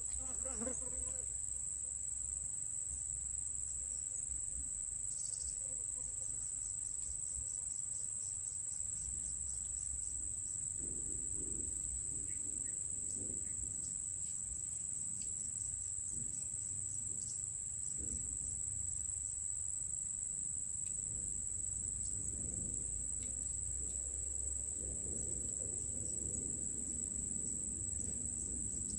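Insects calling: a steady high-pitched trill, with a low rumble underneath.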